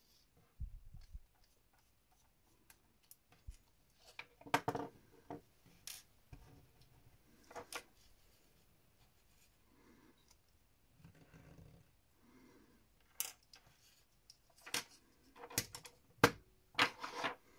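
Scattered small clicks, taps and scrapes of a precision screwdriver and small metal and plastic parts being handled while a LaserDisc player's optical pickup assembly is unscrewed and taken apart. The sounds come in short irregular clusters, busiest near the end.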